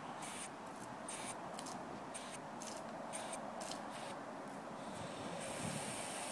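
Water spraying from a garden hose, a steady hiss whose higher part comes and goes every half second or so until about five seconds in.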